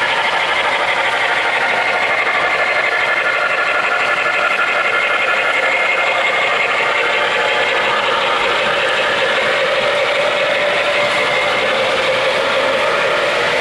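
O-gauge model freight train of loaded coal hoppers running on three-rail track: a steady, unbroken rattle of metal wheels on the rails.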